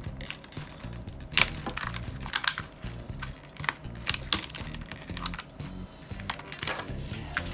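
Irregular sharp clicks and light taps of small hard objects being handled: folding knives and their plastic packaging set down and picked up on a table.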